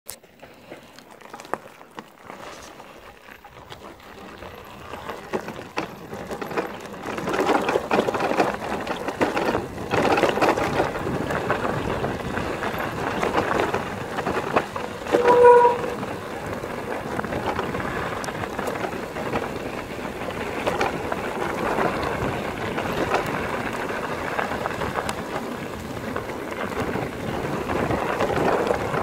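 Mountain bike rolling over a gravel forest track: a steady crunch of tyres on loose stones with frequent small knocks and rattles from the bike, growing louder over the first several seconds as it picks up speed. A brief pitched tone sounds once about halfway through.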